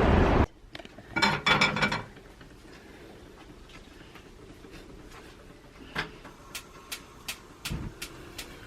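Street traffic noise cuts off abruptly half a second in. A short rattle of clinking objects follows, then sharp light clicks and clinks spread over the last few seconds, with one dull thump near the end.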